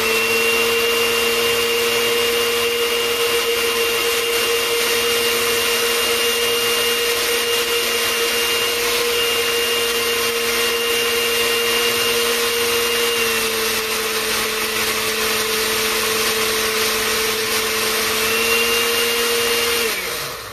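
Countertop blender running steadily, puréeing boiled broccoli into a thicker, finer soup. Its pitch sags a little about two-thirds of the way through, comes back up, and the motor winds down near the end.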